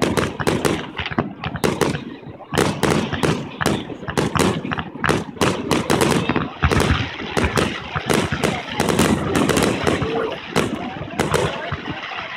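Aerial fireworks going off in quick succession: a dense, unbroken string of sharp bangs and crackles, several a second.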